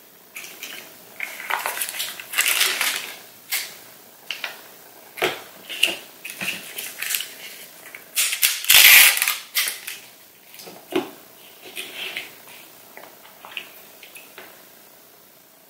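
Crinkly crackling of film lids being peeled off McDonald's dipping sauce cups and a paper sauce packet being torn open, in short bursts. The loudest, longest tear comes about nine seconds in, followed by quieter light ticks and taps as the cups are handled.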